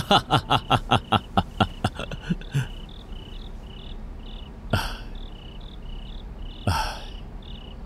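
Crickets chirping steadily, about three high chirps a second. A rapid run of short human vocal pulses fills the first two seconds, and two short breathy bursts come later.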